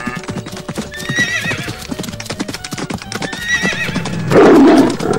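Horse hooves clip-clopping, with two short wavering horse whinnies, about a second in and again about three and a half seconds in. Near the end a loud, rough animal call breaks in.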